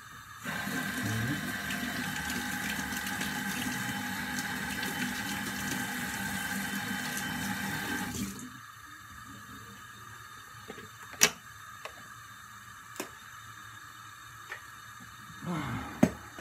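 Kitchen tap running into a sink while a mixer is washed, a steady rush of water for about eight seconds that then stops. A few short sharp clicks and knocks follow, the loudest about eleven seconds in.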